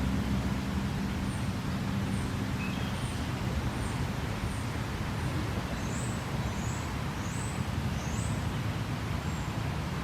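Steady rush of running creek water with a series of short, high bird chirps repeating about twice a second. A low hum of distant road traffic fades out about two seconds in.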